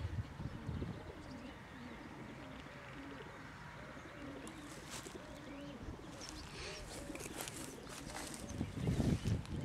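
Many racing pigeons cooing, their calls overlapping continuously. A low rumble comes about nine seconds in and is the loudest sound.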